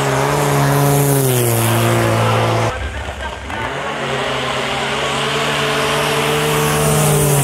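Drag-racing snowmobiles at full throttle: a loud, steady engine tone that drops in pitch about a second and a half in and breaks off just before the middle. A second run comes up, holds steady and drops in pitch again at the very end.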